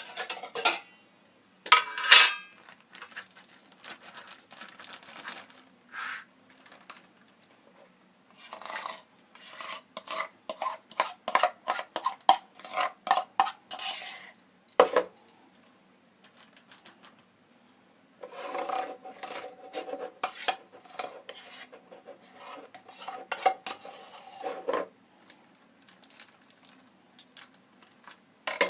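Metal spoon scraping and clinking against a bowl while scooping out thick rice paste, in three spells of quick scrapes and knocks with quiet gaps between.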